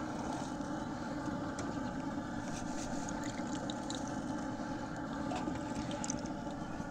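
Steady low rushing from a running Blackstone propane griddle, with faint scattered crackles of food cooking on the hot flat-top.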